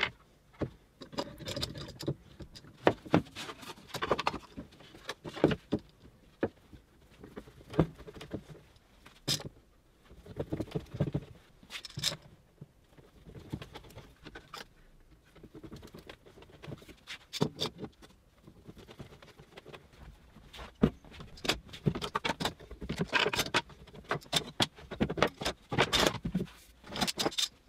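F-clamps being slid along their bars and screwed tight on a glued-up pine carcass: irregular clicks and knocks, spread through with short pauses.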